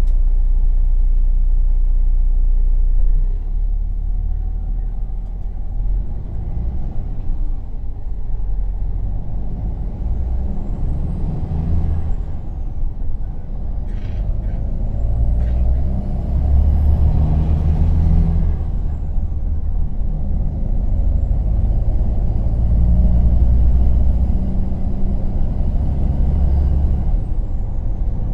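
Temsa Safir Plus coach's diesel engine running under load, heard from inside the passenger cabin. Its low rumble swells and eases several times as the coach pulls away and changes speed, with a faint high whine rising and falling over it.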